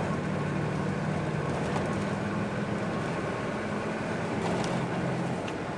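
Dodge pickup truck driving along a dirt road, heard from inside the cab: a steady engine hum over tyre and road noise.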